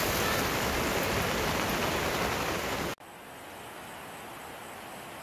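Steady hiss of rain. It cuts off abruptly about three seconds in, leaving a much quieter, fainter hiss.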